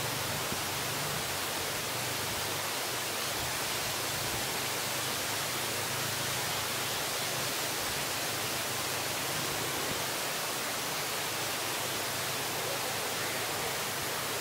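A steady, even hiss of noise with no distinct events in it.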